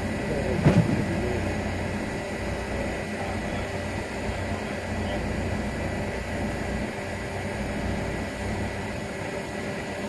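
Crane's diesel engine running steadily under load with a low hum, as it holds a 30-ton steel barge; a brief double thump sounds just under a second in.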